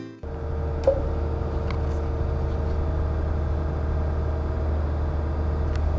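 Steady low hum of a cargo ship's machinery, heard in a store room below deck, with a sharp click about a second in.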